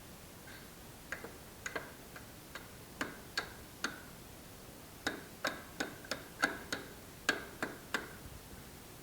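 A string of light, sharp clicks or taps, irregularly spaced, each with a brief ring. They come in two clusters, the denser one in the second half.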